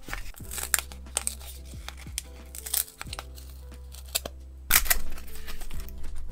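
Background music, with foam-board photo stand pieces being pressed out of their die-cut sheet and handled, giving several short tearing and scraping clicks. The loudest one comes about five seconds in.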